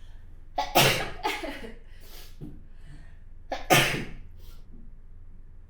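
A woman sneezing twice, about three seconds apart, each sneeze coming right after a quick catch of breath, with smaller breaths or sniffles between them.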